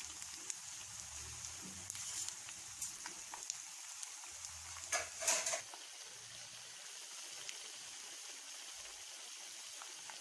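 Plantain-and-coconut patties frying in hot sunflower oil in a pan: a steady sizzle, with a brief clatter of sharp clicks about five seconds in.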